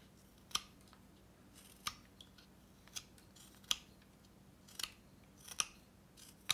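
Carving knife taking short slicing cuts from a wooden dowel: a sharp snick with each stroke, about seven strokes roughly a second apart.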